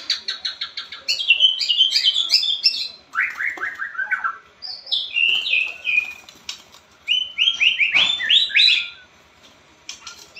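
White-rumped shama (murai batu) singing loud, varied phrases of rapid whistled notes, each phrase a quick run of repeated notes, mostly falling in pitch, with short pauses between phrases. A sharp click is heard about eight seconds in.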